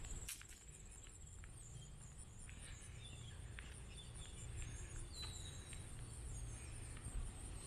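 Faint summer outdoor ambience: insects trilling steadily at a high pitch, a few short bird chirps about the middle, and a low rumble underneath.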